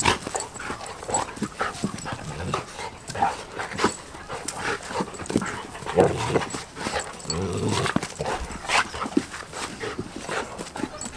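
Two dogs, a golden retriever and a German shepherd, play-fighting: short, irregular growls and snarls mixed with the scuffle of their paws.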